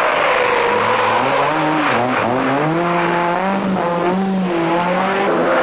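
Renault Clio Maxi Kit Car's four-cylinder rally engine at high revs as the car drives through and past. The pitch climbs in several steps with gear changes, holds, then dips briefly as the throttle lifts about four seconds in.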